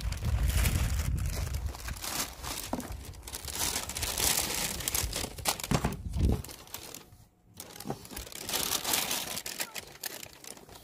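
A thin plastic carrier bag crinkling and rustling unevenly as packaged food containers are lifted out of it, with a low rumble underneath for the first six seconds.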